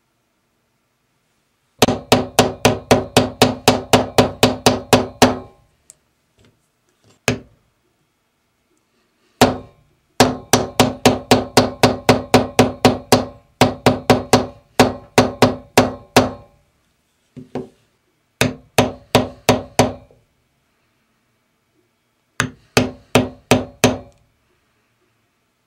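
A mallet striking a steel stamping tool held on a blank on a wooden block, in quick runs of about four blows a second with pauses between. Each blow rings briefly through the metal stamp.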